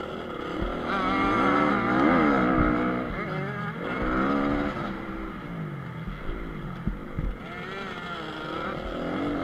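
2014 Honda CRF250R's single-cylinder four-stroke engine, recorded on board while riding a motocross track. It revs up and down through the gears as the bike accelerates and backs off, loudest in the first few seconds. A few sharp knocks come about seven seconds in.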